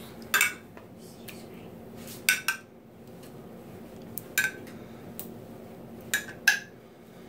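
A metal spoon clinking against a glass jar and a glass baking dish while scooping and spreading thick tomato sauce: several sharp clinks at irregular intervals, two of them close together, over a low steady hum.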